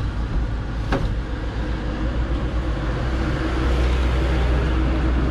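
Steady low rumble of motor-vehicle traffic and road noise, with a single sharp click about a second in; it gets a little louder from about three and a half seconds in.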